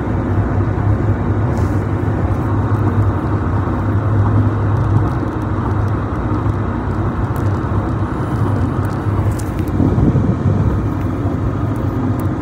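Steady road noise inside a car cruising at highway speed: a low drone with a rush of tyre noise.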